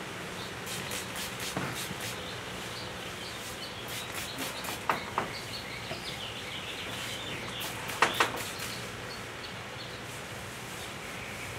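Outdoor background of birds and insects chirping over a faint steady low hum, broken by short sharp clicks that come in two quick pairs about three seconds apart.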